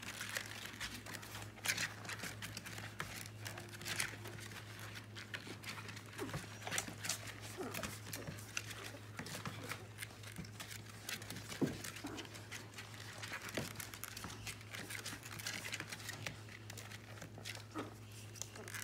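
Litter of 2.5-week-old Labrador puppies nursing: a steady run of wet suckling and smacking clicks with bodies shuffling against the plastic, and a few brief squeaks from the puppies.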